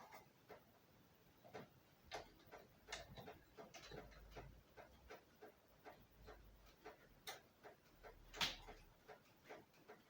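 Faint, irregular small clicks and taps as a brake-pipe flaring tool and its fittings are set up on the pipe, with one sharper click about eight and a half seconds in.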